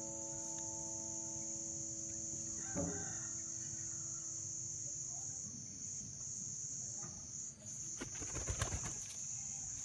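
Steady high-pitched insect chorus with a constant drone, typical of crickets in a natural outdoor setting. A held musical note dies away about three seconds in, and a short cluster of clicks and taps comes near the end.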